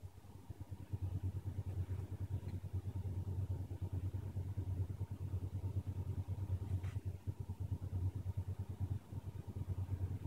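A steady low rumble, with a faint click about seven seconds in.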